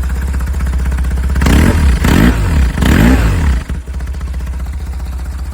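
BMW R1150's boxer twin idling, blipped twice about a second and a half and three seconds in, then settling back to idle. It runs through a new Y-pipe in place of the centre box, with the stock silencer still fitted, and sounds a little different but not hugely.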